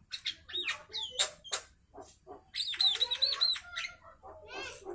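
Javan myna calling: a varied, chattering string of whistles and sharp clicks, with a run of about five quick repeated whistled notes in the middle.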